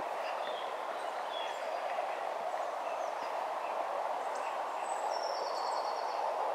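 Small birds chirping faintly over a steady rushing background noise, with a short trill about four seconds in.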